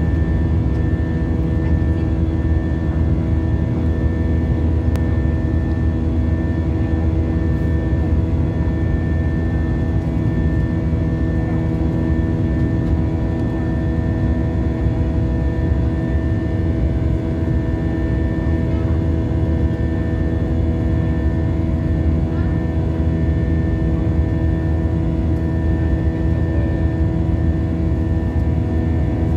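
Airliner cabin noise in flight: a steady low rumble with several constant engine tones over it.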